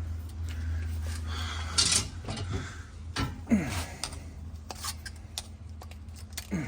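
Small metal clinks, clicks and scrapes from hands working on an evaporator fan motor and its bracket, pulling the rubber mounting grommets off, with a couple of short squeaks, over a low steady hum.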